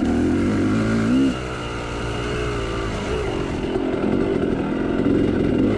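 Yamaha YZ two-stroke dirt bike engine heard on board while riding a trail. The revs climb and then drop sharply a little over a second in, run lower, then build again from about three seconds.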